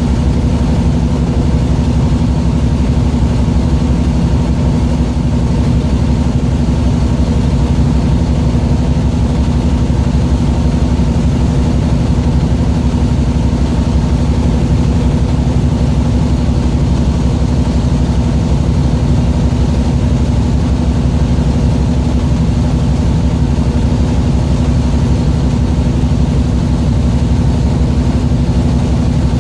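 A boat engine running steadily at an even speed, with a constant low hum and rumble.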